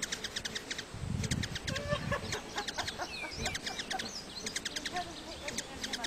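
Hummingbirds chattering in quick, high runs of chips and squeaky twitters, with a low buzzing wing hum as one flies in close about a second in.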